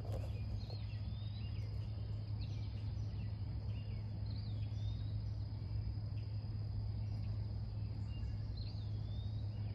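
Riverside ambience: short swooping bird chirps every second or two over a steady low hum.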